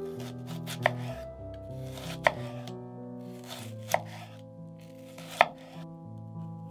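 Chef's knife slicing down through a halved onion and knocking on a bamboo cutting board. There are four cuts about a second and a half apart, each a short crunch followed by a sharp knock of the blade on the wood.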